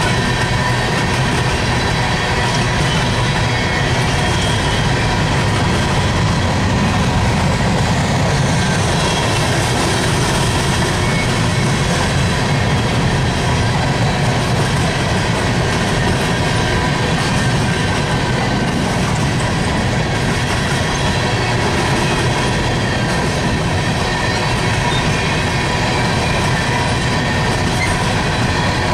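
Empty coal gondolas of a unit freight train rolling past: a steady, unbroken rumble of steel wheels on the rails. A few faint, steady high tones ride over it.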